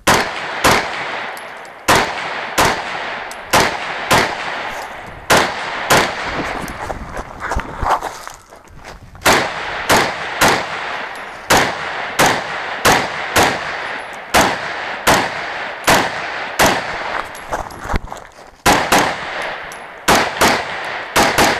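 Semi-automatic rifle fired rapidly, dozens of shots, mostly in quick pairs, each with a short echo. There are brief pauses about eight and eighteen seconds in.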